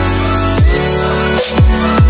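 Background electronic music in a dubstep style, with a heavy beat and deep falling bass hits.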